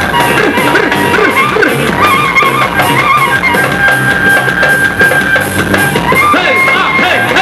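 Live band playing an instrumental passage with no singing: a steady drum beat, guitar, and a melody of long held high notes.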